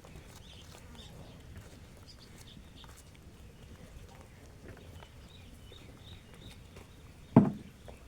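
Free-range chickens pecking grain: faint scattered taps and soft high calls. A single loud, short thump about seven seconds in.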